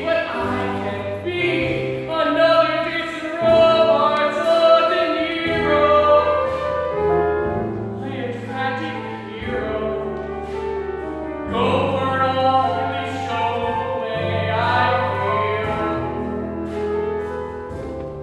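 A male solo singer sings a song with instrumental accompaniment, the melody moving in long held notes over a steady bass.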